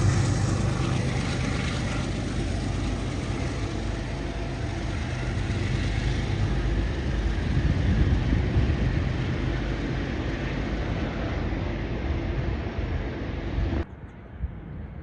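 A train running past, a steady broad rumble with a low drone that eases from its loudest just before this and holds on. It cuts off abruptly near the end, leaving faint wind noise.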